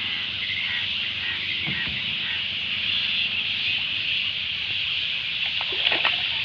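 Water splashing and dripping as a wet fishing net is hauled up out of the river by hand, with the loudest splashes about six seconds in, over a steady high-pitched hiss.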